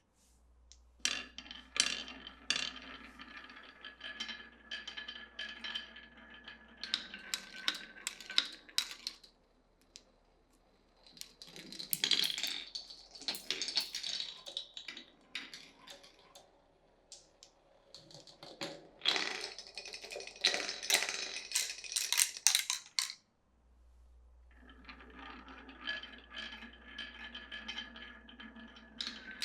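Glass marbles rolling and clattering down a wooden marble run, with sharp clicks as they knock against the wooden blocks and each other. The sound comes in four stretches of several seconds, with short quiet gaps between them.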